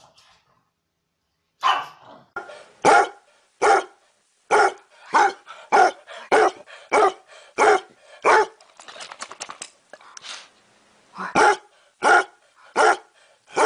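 Basset hound barking over and over, about three barks every two seconds, with a short break in the middle filled by a fast, faint rattle.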